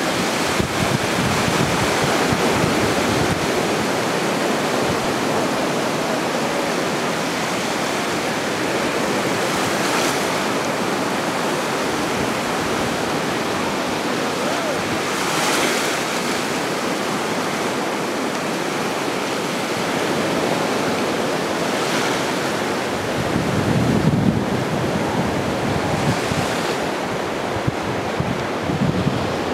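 Ocean surf breaking on a sandy beach: a steady wash of waves that swells louder every several seconds. Gusts of wind rumble on the microphone near the start and again late on.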